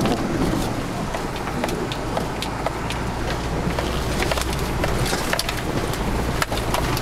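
A 4x4's engine rumbling steadily, heard inside the cabin as it crawls along a rough dirt track, with scattered knocks and rattles from the bumpy ride and bushes brushing and scraping against the body.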